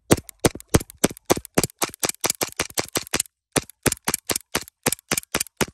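Gas-powered BB pistol firing quick shots, about four a second, each a sharp crack. About two dozen shots come in two strings, with a short pause a little past three seconds in.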